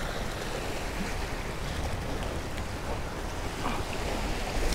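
Sea waves washing and breaking against the jetty rocks in a steady surf, with wind rumbling on the microphone.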